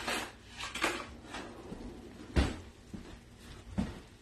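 Kitchen utensils and cookware knocking and clattering: about four sharp knocks, the loudest a little past the middle.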